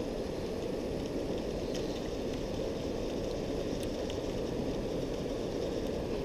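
A steady, low rushing noise without any pitch, with a few faint light ticks scattered through it.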